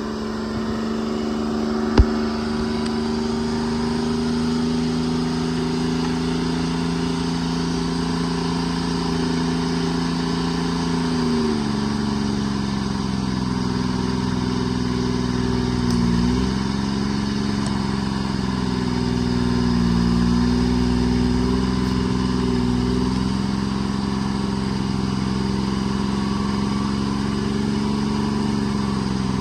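The Treefarmer C5 forwarder's engine runs steadily as the machine works, its pitch dropping and shifting several times: once about a third of the way in, in a brief dip midway, and again a little later. A single sharp click comes about 2 seconds in.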